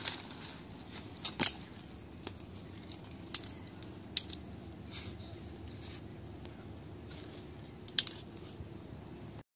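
Dry twigs and sticks snapping and clicking as they are broken and handled by hand, in scattered single sharp clicks. The loudest comes about a second and a half in and another near the end.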